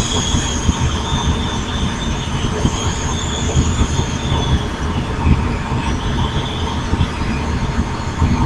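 Small electric model helicopter's motor and rotors running: a steady high whine that wavers slightly in pitch, over rushing, buffeting rotor noise.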